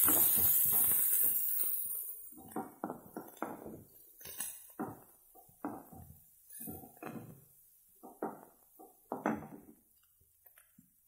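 Chopped onions sizzling in hot coconut oil in a metal kadai, loudest in the first two seconds, then a wooden spatula stirring and scraping them around the pan in a series of short strokes that grow fainter toward the end.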